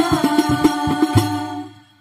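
Banjari hadrah ensemble: women's voices singing in unison over rebana frame drums struck in quick strokes, with a strong last stroke a little over a second in whose low boom rings on. Voices and drums then die away near the end as the piece closes.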